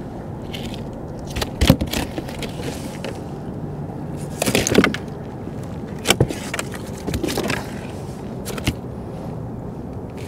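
Scattered knocks, clicks and scrapes of hands handling a fish and gear against a plastic fishing kayak, over a steady low rumble.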